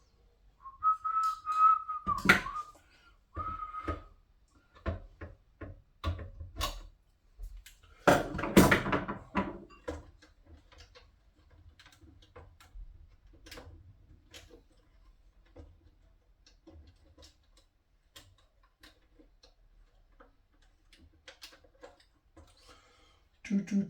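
A man whistling a held note for about three seconds, then the clicks and clatter of tools and parts being handled, with one louder rattling burst about eight seconds in and sparse faint clicks after it.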